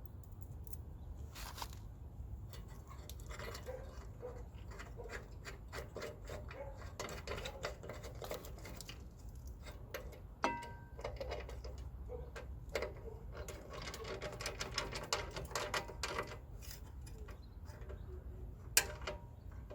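Light metallic clicks, taps and clinks of hand tools and hardware working on truck battery connections and hold-down bolts, with one ringing metal clink about ten seconds in and a faster run of ticks in the second half.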